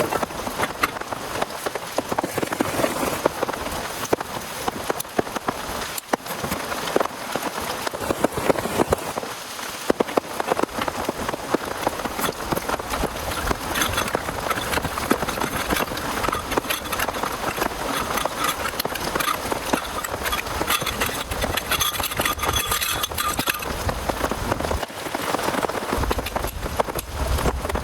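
Heavy rain falling, a dense steady patter of drops striking a surface. A low rumble joins near the end.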